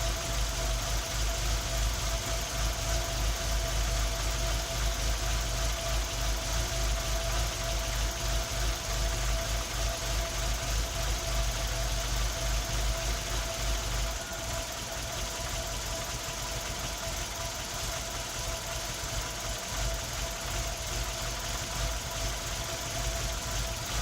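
Car engine idling with an uneven, throbbing beat: the engine is misfiring. About fourteen seconds in it gets a little quieter and the deep throb thins out.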